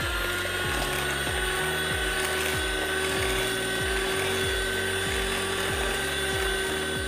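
Electric hand mixer running steadily with a motor whine, its twin wire beaters whisking a runny batter of melted butter, brown sugar and egg until smooth. A low beat about twice a second runs underneath.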